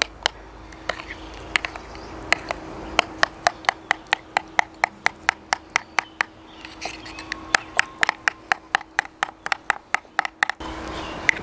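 A metal utensil stirring a thick yogurt marinade in a glass bowl, clicking against the glass about four times a second as the sauce is mixed.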